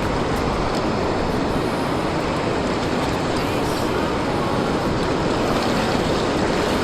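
Steady rush of ocean surf breaking on the beach, mixed with wind noise on the microphone.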